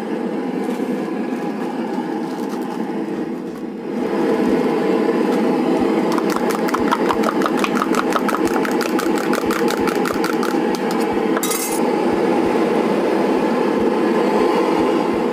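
A knife chopping vegetables inside a steel tumbler: a fast, even run of sharp metallic clicks, about six or seven a second, in the middle of the stretch. It plays over a steady hum, and there is a brief hiss near the end.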